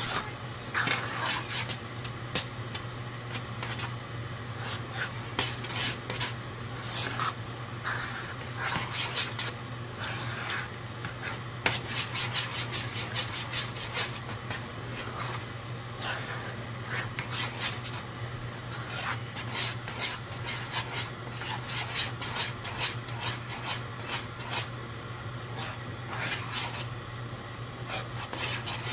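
A spoon stirring thick cheese grits in a metal saucepan, scraping the bottom and sides of the pot in repeated, irregular strokes, over a steady low hum.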